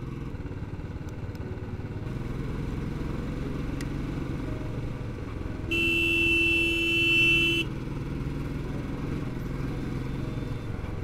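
Motorcycle engine running steadily while riding. A little past halfway, a vehicle horn sounds one steady note for about two seconds.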